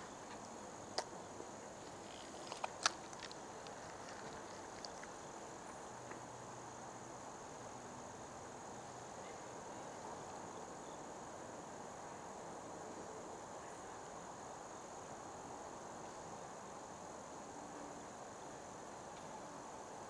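Steady, high-pitched chorus of insects such as crickets, with a few sharp clicks in the first three seconds, the loudest near three seconds in.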